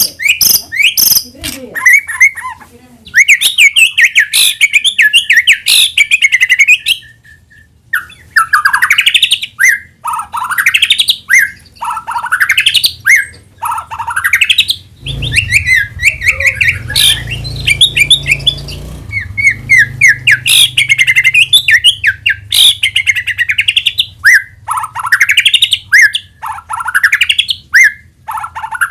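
White-rumped shama (murai batu) singing loudly and almost without pause: runs of rising whistled sweeps, repeated every second or two, mixed with quick chattering phrases. A low rumble runs under the song for a few seconds midway.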